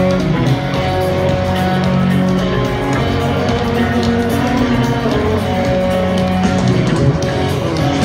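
Live rock band playing an instrumental stretch, electric guitar to the fore over bass and drums, heard through the stadium PA from the stands.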